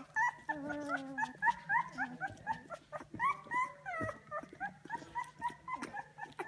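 A litter of two-week-old puppies squeaking and whining together: many short, high, rising squeaks overlapping, with a longer falling whine near the start.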